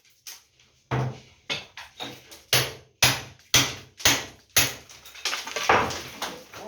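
Hammer blows on a wall, struck in a steady rhythm of about two a second after a short pause. Near the end the blows run into a rougher, rattling noise.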